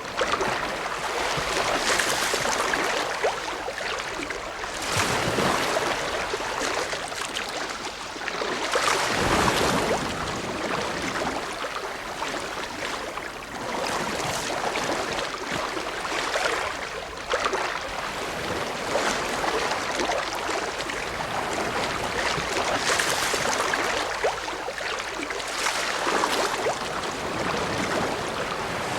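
Ocean waves breaking and washing on the shore: a continuous surf wash that swells with each wave every few seconds.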